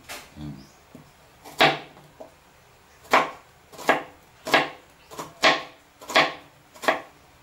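Chef's knife slicing a small red onion on a plastic cutting board, each cut ending in a sharp knock of the blade on the board. One cut about a second and a half in, then a steady run of about seven cuts roughly 0.7 s apart.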